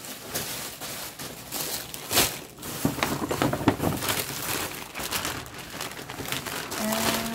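Plastic and paper shopping bags rustling and crinkling as they are handled and pulled open, with irregular crackles throughout.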